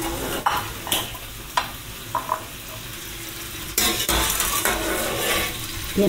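Scarlet prawns sizzling as they sauté in a frying pan, with a few sharp utensil clicks in the first two seconds; the sizzle grows louder about four seconds in.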